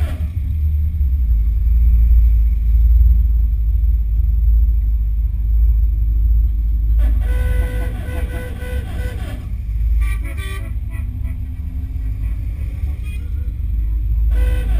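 Car horns tooting in a run of short, repeated beeps about seven seconds in, with a shorter burst of toots just after. Underneath, a steady low rumble from the moving car.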